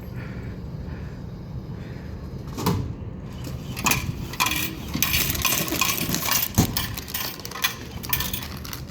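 AMS snack vending machine vending, with a steady hum and a few sharp knocks as it works. From about four seconds in, coins jingle and clatter down into the change return for several seconds.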